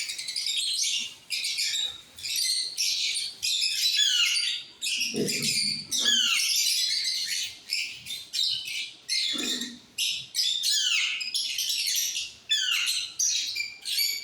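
Alexandrine parakeets calling with repeated harsh screeches, each sliding down in pitch, coming in quick bursts one after another.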